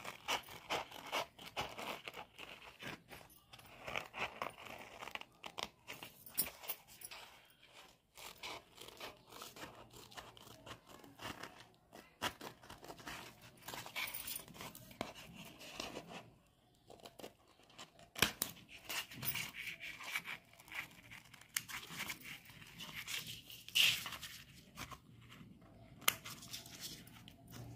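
Pink-handled scissors cutting through white drawing paper: a run of short snips at an irregular pace, with brief pauses as the sheet is turned.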